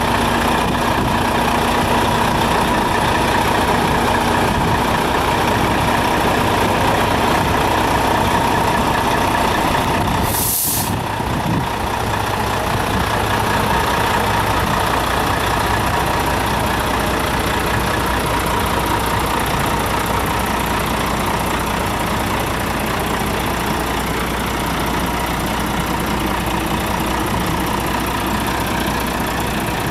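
Volvo FH12 480 tractor unit's 12-litre straight-six diesel running steadily, with a short air hiss from the brakes about ten seconds in.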